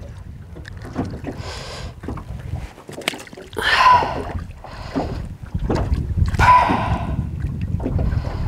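Choppy lake water slapping and sloshing against the side of a small metal boat in short splashes about every couple of seconds, over a steady low wind rumble on the microphone.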